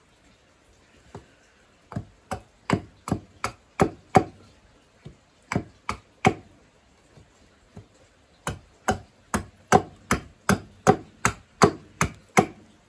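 Small hatchet chopping a wooden cup blank to shape: sharp wooden chops about two to three a second, a run of about seven, a short pause and three more, then a longer run of about a dozen.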